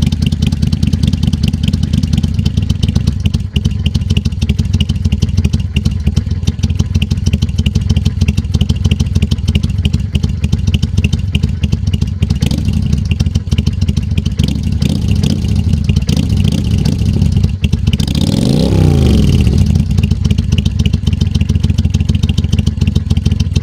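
Kawasaki Vulcan 800 V-twin engine idling with a steady exhaust beat. About three-quarters of the way through, it is revved once, the pitch rising and falling back to idle.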